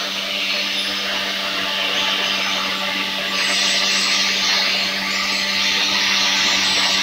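Handheld angle grinder running at speed with a white buffing wheel, polishing a stainless steel spoon lure with buffing compound as the final finishing stage: a steady motor whine over the hiss of the cloth wheel on the metal, a little louder from about three seconds in.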